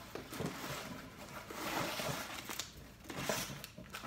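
Packaging rustling and crinkling as items are handled and lifted from a subscription box, with a few soft knocks.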